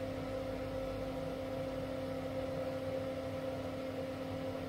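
Steady low hum with a faint hiss, with no change in pitch or level: the background drone of an appliance or fan in the room.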